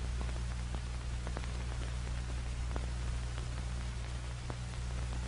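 Background noise of an old film soundtrack: a steady hiss over a low hum, with scattered faint crackles and clicks.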